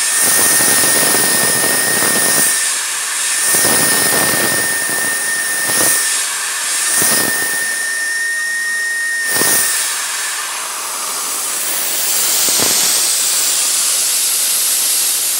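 Milling machine end mill cutting holes in a PVC part: a steady high spindle whine over a loud hiss from the nozzle blowing at the cutter, with repeated surges as the cutter bites. The whine fades out about ten seconds in while the hiss carries on.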